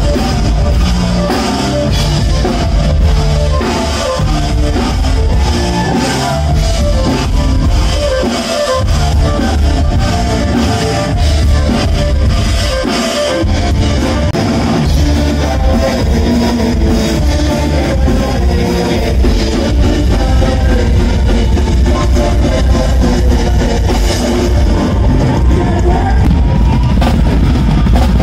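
Live rock band playing loud, with a drum kit and electric guitar carrying the music.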